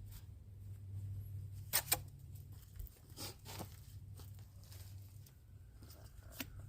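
Two sharp clicks in quick succession about two seconds in, among fainter scattered rustles and taps, over a low steady hum.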